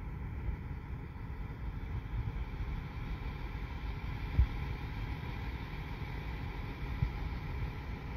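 Wind buffeting the phone's microphone: a steady low rumble with two louder thumps, one midway and one near the end, over a faint steady hiss.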